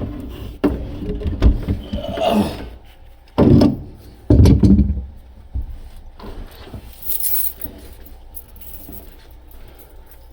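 Clinks, knocks and scraping from hand work on a broken-off water valve. There are scattered sharp knocks, then two louder rough scrapes about three and a half and four and a half seconds in, and the noise tapers off to lighter handling.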